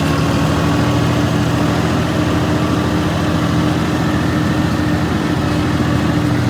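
An engine running steadily at a constant speed, a low even hum with a held tone above it.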